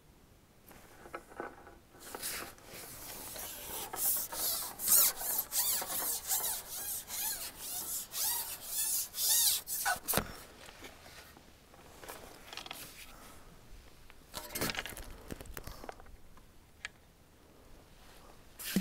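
Long carbon fishing pole being shipped, sliding and rubbing with a squeak in a run of quick strokes, about two a second, for several seconds, then a few more single rubs.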